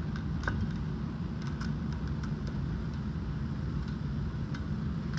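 A steady low mechanical hum, like a motor running, with a few faint light clicks over it.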